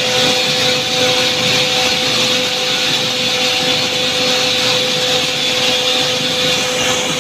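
Plastic recycling pelletizing line running: a loud, steady machine whir with a constant hum tone through it.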